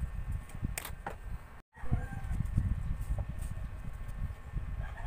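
Pieces of corrugated cardboard shuffled and pressed flat on a desk: soft knocks and rustling, with a few sharp clicks. A chicken calls briefly in the background just after the sound cuts out for a moment, and again near the end.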